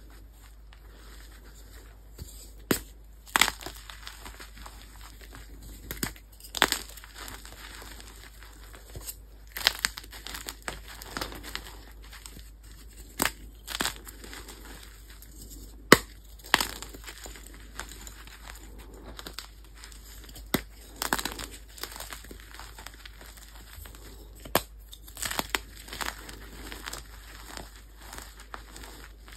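Soft gym chalk blocks squeezed and crushed by hand: irregular sharp crunches as the blocks break, with softer crumbling of loose chalk powder between them. The loudest crunch comes a little past halfway.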